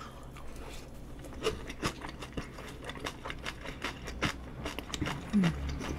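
Eating sounds: irregular small clicks and taps of chewing and a spoon working a dish of rice and nakgopsae stew. A brief hum of the voice comes near the end.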